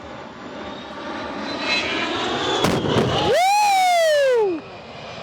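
A-10 Thunderbolt II jet passing low over the crowd during a simulated attack run, its engine noise building. Two sharp pyrotechnic bangs about two and a half seconds in are followed by a loud whining tone that glides up and then down in pitch for about a second before cutting off.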